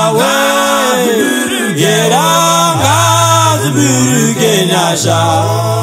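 Zimbabwean gospel song in Shona: voices singing together in held, gliding phrases over a steady bass line that steps between a few low notes.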